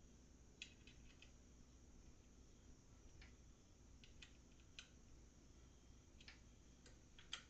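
Faint, irregular light clicks of an Allen key working metal cap screws, about a dozen over several seconds, over near-silent room tone.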